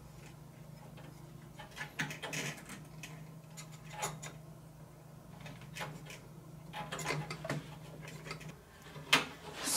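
Scattered light clicks and knocks of hands handling parts inside a PC case while fitting the 8-pin CPU power cable, over a steady low hum.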